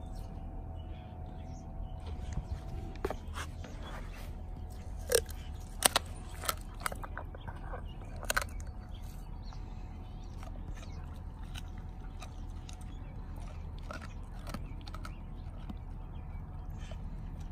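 German Shepherd biting and chewing raw chicken held in a person's hand, with sharp crunches and snaps. The crunching is thickest between about three and nine seconds in, then comes only now and then.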